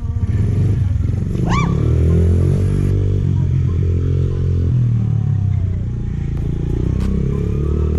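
Small pit bike engine running as the bike is ridden, its pitch rising and dropping with the throttle every second or two.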